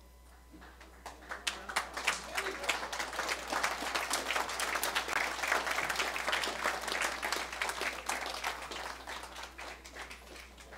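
Audience applauding: the clapping starts about half a second in, swells to a full, steady round and thins out near the end.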